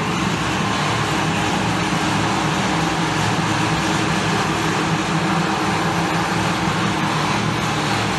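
Steady mechanical noise of machine-shop equipment running, with a low hum underneath, from another machine cutting in the background.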